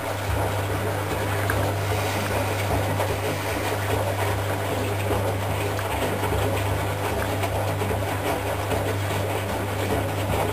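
Predom Polar Westa-85 front-loading washing machine with its drum turning fast under the motor: a steady motor hum with the rush of wet laundry inside the drum.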